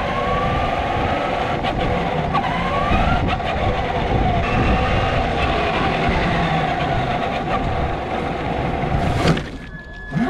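Electric motor whine, pitched and steady, with a few rising glides that level off, over a low rumble of road and wind noise. It dips briefly near the end.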